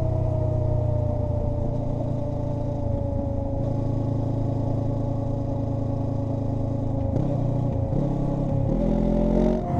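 Honda NX500's parallel-twin engine running through a Black Widow 230SR slip-on exhaust while riding at a fairly steady speed: a very quiet, near-stock exhaust note. A steady whine from the knobby Motoz Desert rear tyre slowly drops in pitch. The engine note shifts about seven seconds in and again near the end as the throttle changes.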